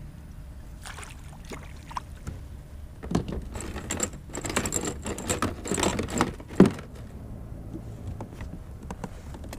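Clicks, rattles and rubbing from hands handling gear on a kayak, a busy stretch of about three and a half seconds that ends in one sharp knock.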